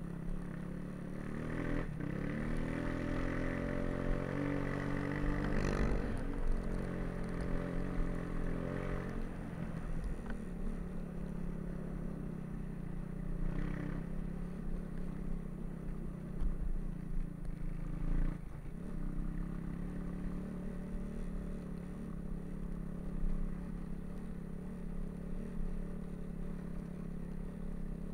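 Snowbike engine running under way, revving up in pitch about two seconds in and then holding at a steady pace. A few sharp knocks sound over it.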